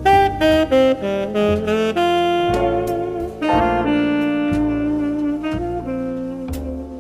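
Background jazz music: a saxophone plays a lively melody of short notes over bass and piano.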